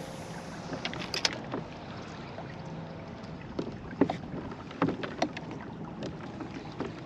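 Water sounds around a kayak: a steady wash with scattered small splashes, drips and light knocks at irregular moments.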